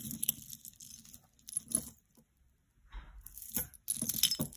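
Silver-tone metal chain necklace with coin-style medallion charms clinking and jingling as it is handled, in short bursts with a brief pause in the middle.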